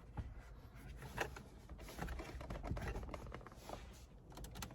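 Plastic interior trim cover in a minivan's dashboard being worked loose by hand: a scattered series of light clicks and rattles, several in quick succession near the end.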